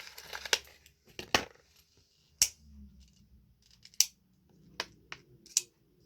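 Handling sounds from a small object being turned over in the hands: about five sharp, separate clicks a second or so apart.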